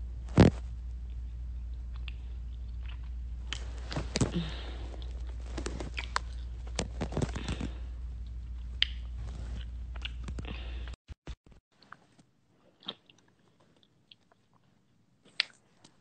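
Scattered clicks, crunches and rustles close to a phone's microphone as the phone is handled and moved about. A steady low hum runs underneath and cuts off suddenly about eleven seconds in, leaving near silence with a few faint clicks.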